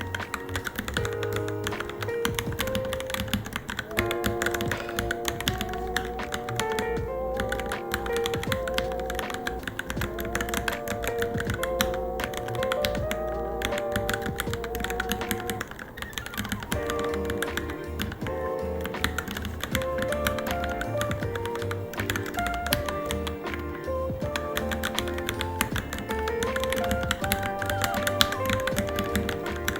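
Continuous rapid typing on a Varmilo Minilo mechanical keyboard, the keys clacking many times a second without pause, over background music with a melody and a steady low beat.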